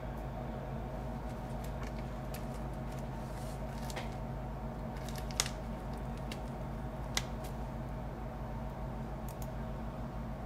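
Scattered small, sharp clicks and ticks over a steady low electrical hum; two louder clicks come about five and seven seconds in.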